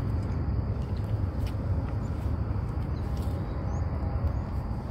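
Steady low outdoor rumble with no clear events, a fluttering background noise of the kind made by wind on a handheld phone's microphone or distant traffic.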